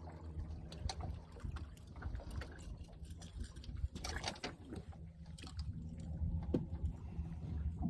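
Boat motor running steadily at trolling speed, a low even hum, with scattered light knocks and a brief rush of noise about four seconds in.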